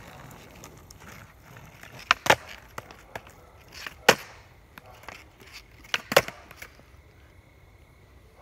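Skateboard on an asphalt path: wheels rolling, then three sharp wooden cracks of the board popping and slapping the ground, about two seconds apart, with lighter clacks in between.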